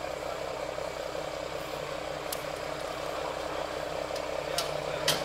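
Crane truck's engine running steadily, with a few sharp clicks about two seconds in and near the end, the loudest just before the end.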